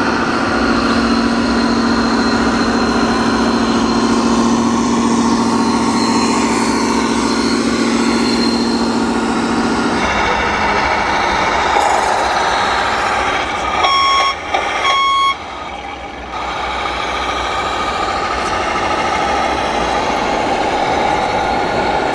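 Electronic sound modules of radio-controlled scale trucks: a steady engine hum, which changes abruptly about ten seconds in, then two short reversing-alarm beeps about a second apart. Hall noise throughout.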